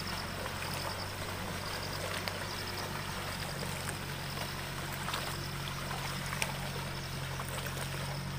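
Water sloshing and splashing as a pair of bullocks wade and drag a farm implement through a flooded paddy field, with a few faint clicks and a steady low hum underneath.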